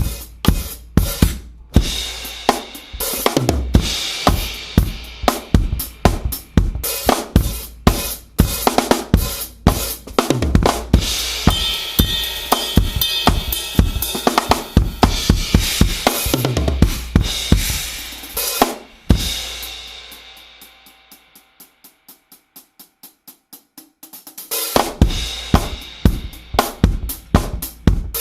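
Tama drum kit played in a fast, busy groove with snare, bass drum, hi-hat and cymbals. About twenty seconds in it dies down to a few seconds of quiet, evenly spaced light strokes, about four a second, then the full kit comes back in.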